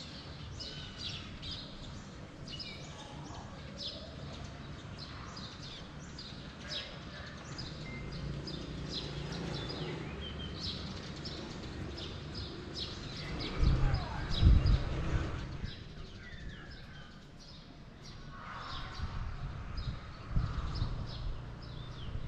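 Small birds chirping with many short, high calls over a steady low rumble, which swells to a louder low burst about two-thirds of the way through.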